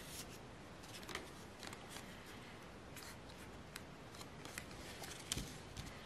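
Square of white paper being folded and creased by hand for an origami crane: faint rustling broken by short, sharp crackles, the loudest about five seconds in.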